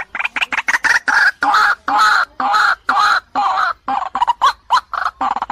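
White-breasted waterhens calling: a loud, unbroken run of short croaking notes, several a second, with longer notes in the middle. It is presented as a female calling a male, a lure call.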